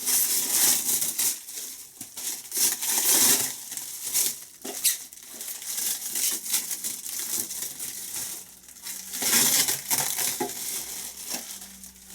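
Thin plastic protective foil crinkling and crackling in irregular bursts as it is handled and peeled off a new model part.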